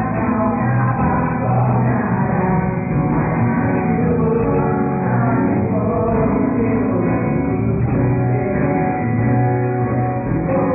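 Live gospel band playing amplified rock-style music with sung vocals, loud and steady. The recording has its highs cut off, so it sounds muffled.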